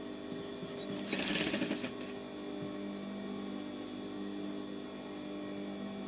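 Industrial sewing machine humming steadily, with a short burst of noisier sound lasting about a second, starting about a second in.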